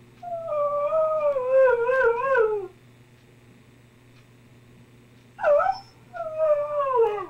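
Husky-type dog howling: one long wavering howl that slides down in pitch, a short yelp about five seconds in, then a second, shorter howl falling in pitch. The dog is calling out to check whether its absent family is within hearing.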